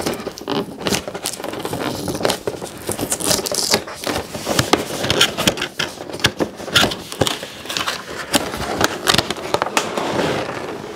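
Clear plastic packaging tray and cardboard toy box being handled and pulled apart: continuous crackling and rustling with many small sharp clicks and scrapes.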